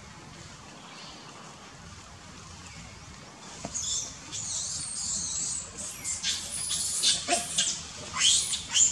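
Baby macaque squeaking and squealing in short, high-pitched calls that start about three and a half seconds in. Several calls slide down in pitch, and they grow louder and come faster toward the end.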